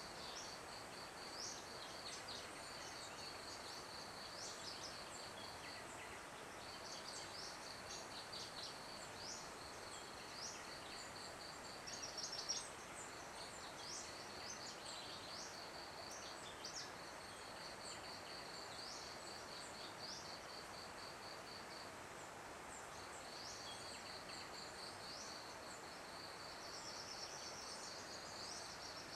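Field ambience: a high, rapid, evenly pulsed insect trill that runs in long stretches and breaks off for several seconds in the middle, with short rising bird chirps over it and a soft steady hiss.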